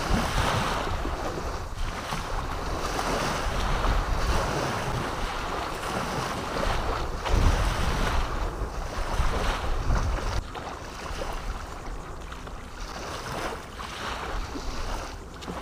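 Wind buffeting the microphone in gusts, strongest a little past halfway and easing off about two-thirds through, over small waves washing against the shoreline.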